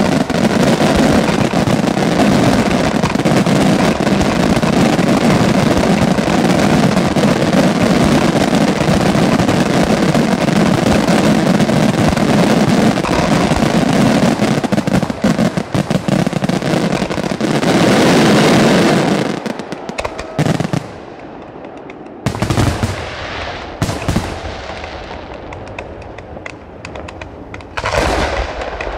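The finale of an aerial fireworks display: a dense, continuous crackle and rumble of many shells bursting at once. It swells to a final loud surge about eighteen seconds in, then gives way to a few separate bangs a second or more apart.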